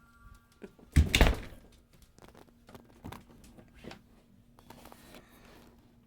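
A door shutting with a sharp double thunk about a second in, followed by a few faint clicks, over a faint steady low hum.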